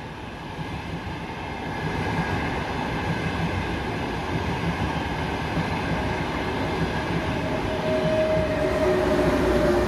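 Frecciarossa ETR 500 high-speed train passing on the far track, a steady rumble of wheels on rails that grows slowly louder. A faint steady whine joins in about six seconds in.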